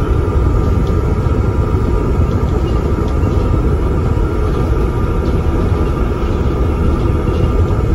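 Volvo double-decker bus with an Alexander ALX400 body running under way, heard from inside on the upper deck: a steady low diesel rumble with a constant high whine over it and light rattles from the body.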